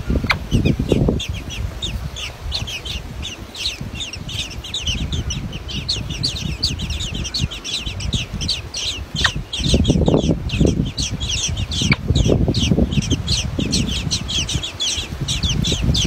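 Common blackbird nestlings begging to be fed: a rapid, unbroken run of short high chirps, several a second. Bouts of low rustling noise come and go, the loudest about ten seconds in.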